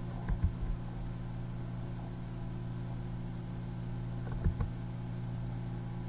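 Steady low hum with its overtones, the recording's background noise, broken by a few soft clicks near the start and again about four and a half seconds in.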